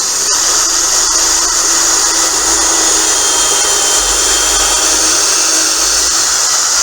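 Electric drill running at a steady, even speed as it bores a hole through a short wooden dowel.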